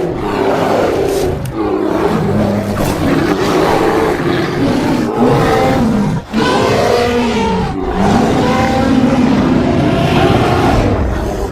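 Loud, rough roaring and growling calls that rise and fall in pitch, with a short break about six seconds in.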